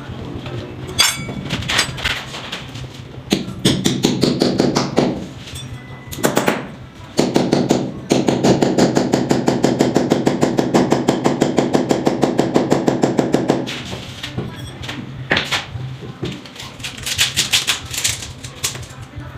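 Hammer striking a chisel into a plastered wall in runs of quick, even blows, chipping out the plaster. The longest and loudest run comes about halfway through.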